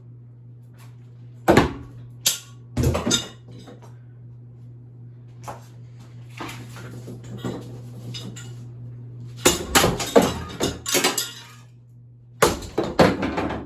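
A ceiling fan with metal blade arms being smashed: loud metallic clangs and crashes in bursts, a few hits about two to three seconds in, a long rattling spell around ten seconds and another near the end, over a steady low motor hum.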